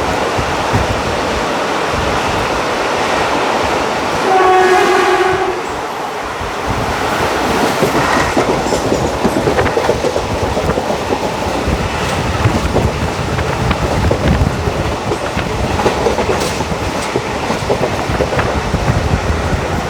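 ICF passenger coach running at speed, its wheels clattering and knocking over the rail joints under a steady rumble. About four seconds in, the hauling WAG5 electric locomotive's horn sounds once, a single steady note lasting about a second and a half.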